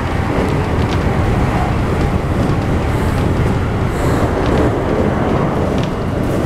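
Interior running noise of a Keikyu New 1000 series (1800 subgroup) electric commuter train at speed: a steady, loud rumble of wheels on rail, with a few faint clicks.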